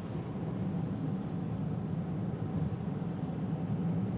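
Steady low rumble of a car driving, with no changes.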